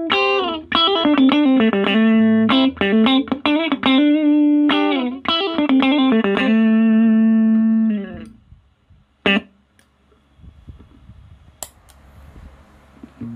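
Electric guitar through a compressor pedal and small practice amp playing a quick single-note lick with some bent notes. The lick ends on a long held note that fades out about eight seconds in, followed by one short picked note and then faint amp hiss.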